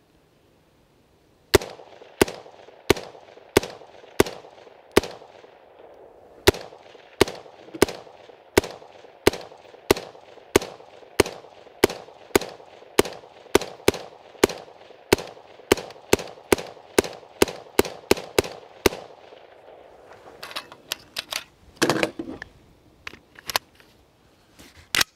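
A 5.56 mm BCM AR-15, run for years without oil or cleaning, firing about thirty-five semi-automatic shots without a stoppage. The shots come about one and a half a second at first and quicken to nearly three a second. The firing stops and is followed by a few seconds of clatter and clicks.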